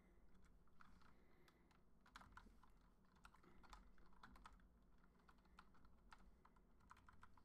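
Faint typing on a computer keyboard: irregular, quick key clicks with short pauses between them.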